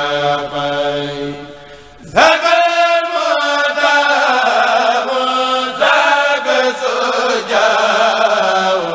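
A kourel, a group of Mouride men, chanting a khassida in Arabic together. The chant dies down about two seconds in, then a new, higher phrase starts with a rising swoop and carries on.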